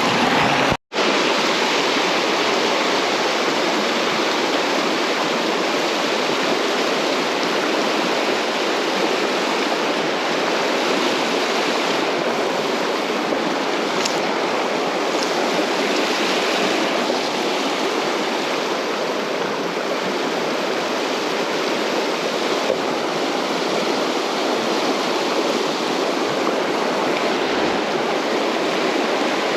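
Steady rush of flowing creek water, with a split-second cut-out about a second in.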